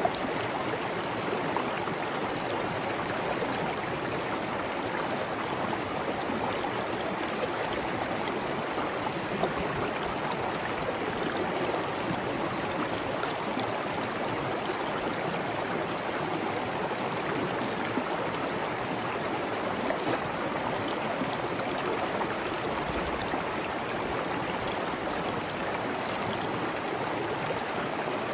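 Water running steadily over rocks in a stream, a constant babbling rush with a few small splashes standing out.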